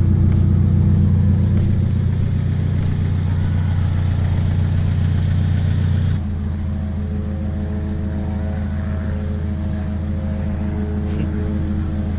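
Car engine running at a steady speed; the sound changes abruptly about six seconds in, then carries on a little quieter.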